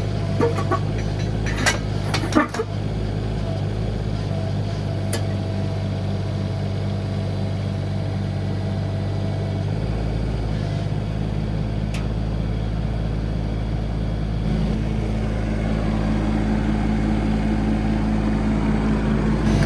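Mini excavator engine running steadily, with a few sharp knocks in the first couple of seconds. The engine note changes about ten seconds in and grows a little louder around fifteen seconds in.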